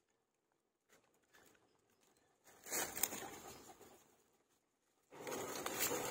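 Dogs eating food taken from a hand close to the microphone: two bouts of noisy chewing, snapping and mouth sounds mixed with rustling, the first about two and a half seconds in and a louder one from about five seconds in.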